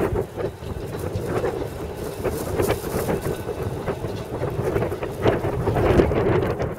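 Blackpool Balloon double-deck electric tram running past along the street tracks, a steady rumble with a few sharp clicks, while wind buffets the microphone.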